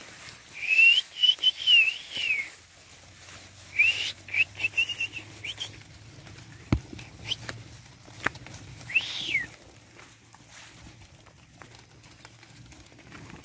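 A herder whistling to drive a flock of sheep: three bursts of warbling, rising-and-falling whistle notes, the last one short, with a few sharp clicks in between.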